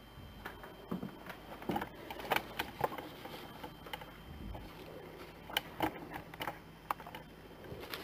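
Faint, irregular clicks and light taps from a hand tool being handled and worked at a small droid's restraining bolt.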